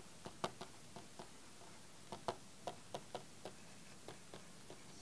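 Faint, irregular clicks and taps of a stylus on a pen tablet as block capital letters are written, about three a second, with two sharper taps about half a second in and just after two seconds.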